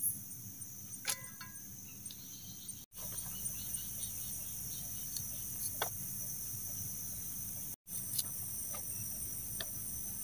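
Steady high-pitched chorus of forest insects, with a few faint ticks and taps over it. The sound cuts out completely for an instant twice.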